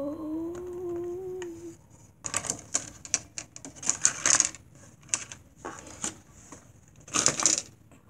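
A person hums a held note that rises slightly and stops after about a second and a half. Then thin clear plastic blister packaging crinkles and crackles in irregular bursts as it is pulled apart by hand, loudest near the middle and again near the end.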